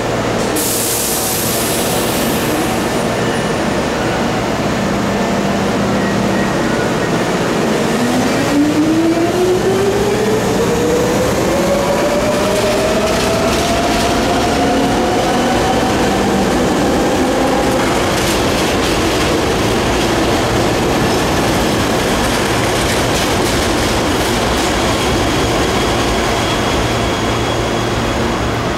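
Hankyu 3300 series electric train pulling out of the station. From about eight seconds in, a whine from its traction motors climbs steadily in pitch as it gathers speed, over the running noise of the wheels on the rails. The whine cuts off about ten seconds later as the train moves on.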